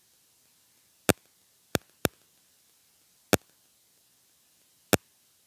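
Five sharp, short clicks at uneven intervals over a faint steady hiss.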